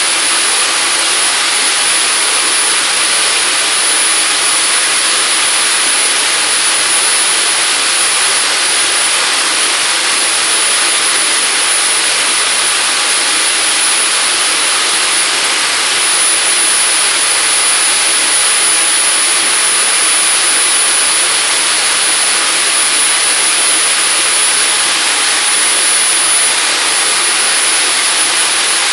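AMT model gas turbine jet engine of about 45 lb thrust running steadily at constant speed: a loud, even roar of exhaust with a steady high whine above it.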